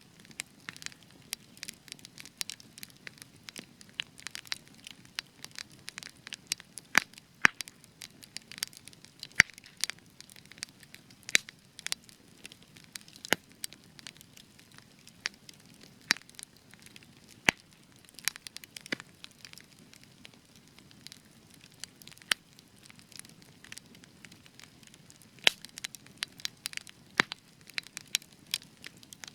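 Spruce-wood campfire crackling, with frequent sharp irregular pops and snaps over a soft low hiss of burning.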